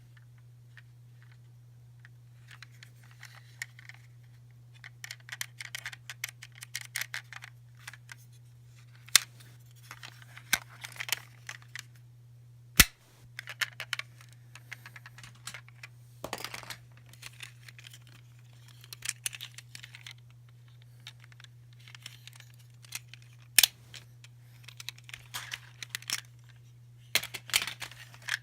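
Small plastic toys and wrappers being handled: bursts of clicking, rattling and rustling, with one sharp snap about thirteen seconds in. A steady low hum runs underneath.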